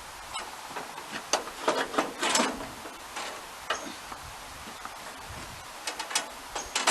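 Scattered metal clicks and knocks from hands working the band sawmill's blade and tensioning parts while the blade is slackened for removal, thickest between one and two and a half seconds in.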